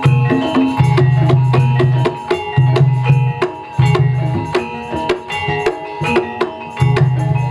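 Javanese gamelan ensemble playing jaranan trance music: kendang drums beat fast and densely over stepping metallophone notes, with a deep low part that comes and goes in blocks every second or so.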